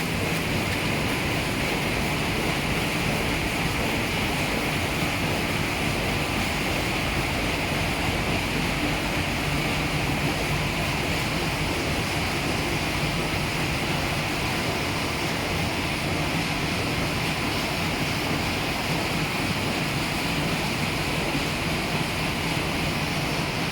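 Roll-fed die cutting machines running, giving a steady, even mechanical din with a low hum and no distinct individual strokes.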